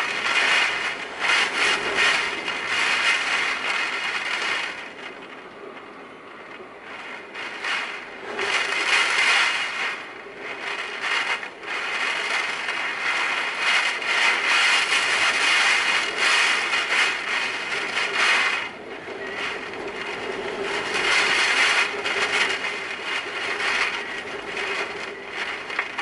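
Typhoon wind and driving rain, gusting hard and easing off in waves, with a dense crackle running through the noise.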